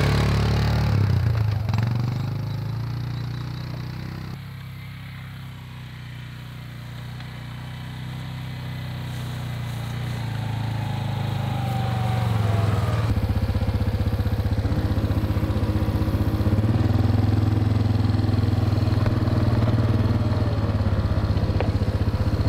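ATV engine running as the quad drives off, fading to a distant drone about five seconds in. It grows louder as the ATV comes back and runs loud and steady close by over the second half.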